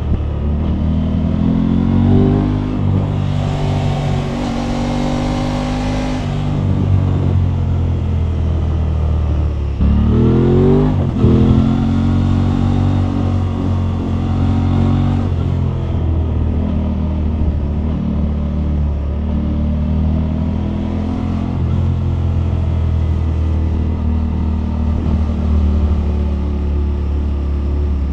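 Aprilia RS 660's parallel-twin engine through its stock exhaust, heard from the rider's seat while riding. The revs climb under acceleration a few times in the first half, with a sharp rise about ten seconds in, then the engine settles to a steadier, lower cruising note.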